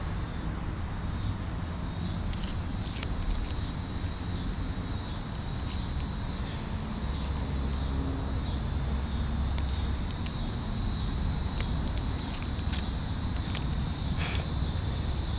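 Steady chorus of insects, a high buzzing with a regular pulse, over a low rumble.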